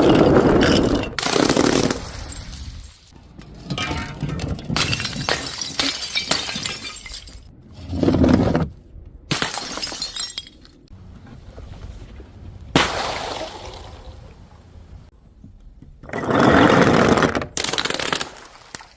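Glass bottles and jars shattering one after another: a series of separate loud crashes a few seconds apart, each breaking up into a spray of smaller noise.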